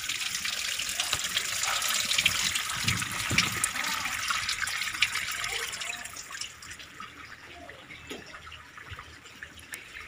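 Water draining out of a Samsung single-tub top-loading washing machine through its drain hose: a steady rush of water with small splashes, marking the drain stage after the wash. It grows fainter about six seconds in.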